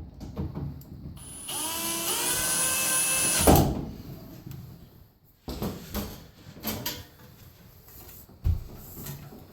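Power drill/driver running a screw in for about two seconds with a rising whine, ending in a loud clunk, followed by scattered knocks and clicks of handling.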